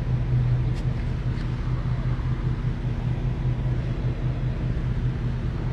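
A motor vehicle's engine running steadily, a low, even hum.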